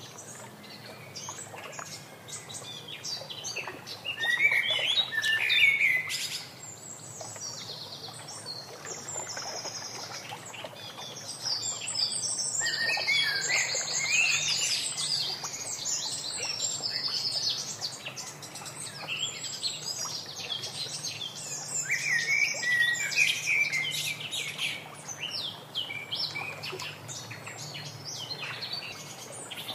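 Several wild birds chirping and singing: a busy mix of short chirps, sliding whistles and fast trills, loudest about five seconds in and again a little past the middle.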